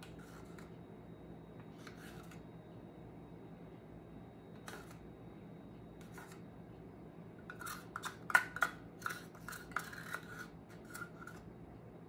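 Scraping and clicking of a thin stick or palette knife against a small plastic paint cup as acrylic paint is scooped out and dabbed on: a few faint strokes, then a quick run of sharper scrapes about eight seconds in.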